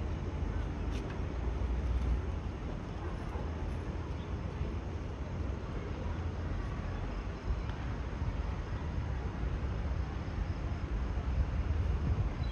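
Outdoor city ambience at night: a steady low rumble with an even haze of noise above it.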